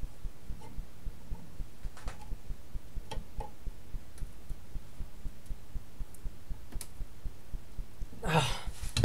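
Metal tower-clock parts being handled and fitted by hand: a few light metallic clicks, then a louder scrape and a thump near the end. A soft, even low pulse of several beats a second runs underneath.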